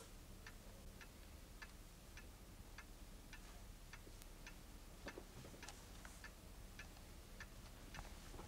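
Near silence, with a clock ticking faintly and evenly, about two ticks a second.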